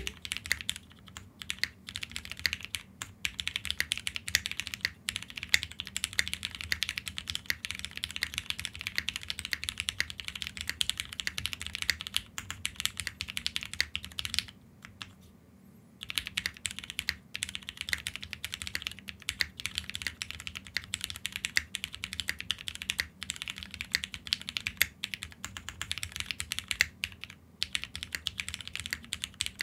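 Typing on a Wind Studio Wind65 custom 65% mechanical keyboard: a dense, steady stream of key clacks, with a pause of about a second and a half about halfway through.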